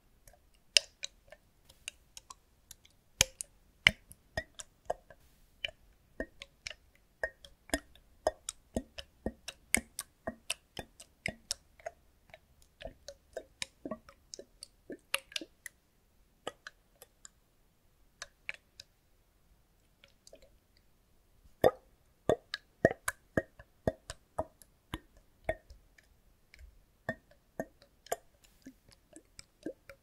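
Liquid sloshing and glugging inside a clear plastic bottle as it is tilted back and forth close to the microphone: an irregular run of wet plops and clicks, thinning out for a few seconds past the middle.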